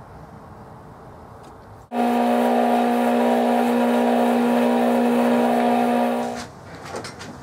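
Metal lathe running with a drill in the tailstock chuck fed into the spinning workpiece, making a loud, steady, pitched whine over a hiss. The whine starts suddenly about two seconds in and stops about six seconds in; before it there is a lower, quieter machine hum.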